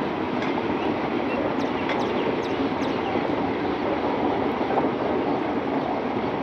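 Passenger coaches of an Indian Railways express train rolling past as it arrives at a station: a steady rumble of wheels on rail, with a few faint brief squeals about two seconds in.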